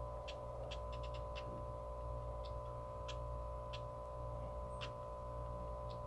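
Faint, tinny hip-hop instrumental leaking from a Mago Bluetooth earphone worn in the ear: a sustained synth tone over a low repeating pulse, with scattered sharp high ticks like a hi-hat.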